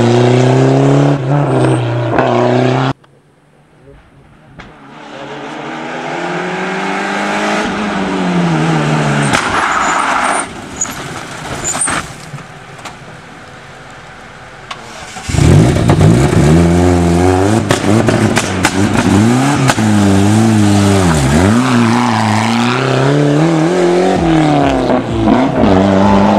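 Rally car engines at full throttle on a tight mountain bend, several passes cut together. One car pulls away, the sound breaks off suddenly, and another car builds up from far off with a few sharp cracks. In the second half a loud stretch follows, the revs swinging up and down rapidly as the driver works the throttle and gears through the turn.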